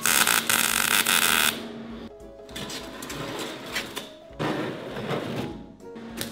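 Electric arc welding on a steel frame: a loud, steady crackling hiss that cuts off about a second and a half in.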